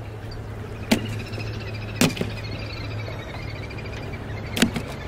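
Small fish tossed by hand onto wooden boards land with three short, sharp slaps, about one, two and four and a half seconds in, over a steady low hum.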